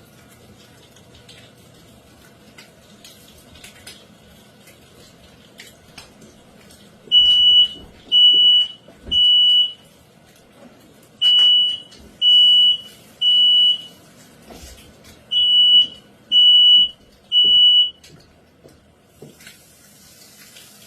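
Household smoke alarm beeping in three groups of three shrill beeps, set off by smoke from cheese toast being toasted on an iron.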